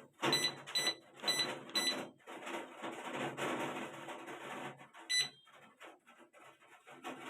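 Whirlpool washing machine control panel beeping as its buttons are pressed on a newly fitted control board: four short high beeps, three in the first two seconds and one about five seconds in, with handling rustle between them.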